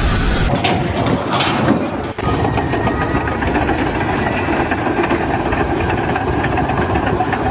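An engine running, dense and noisy, with a brief break about two seconds in.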